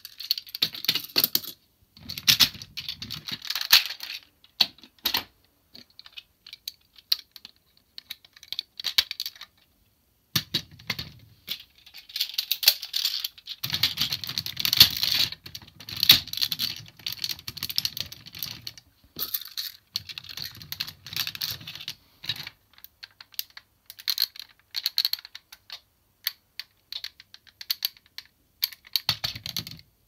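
Hard plastic parts of a DX Siren Patokaiser toy robot and its Trigger Machine vehicles clicking and clattering as they are handled and snapped together, in bursts of sharp clicks with a few short pauses.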